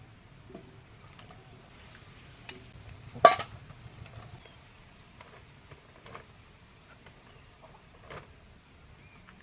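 Scattered light clicks and taps of dishes and utensils, with one sharp clatter about three seconds in.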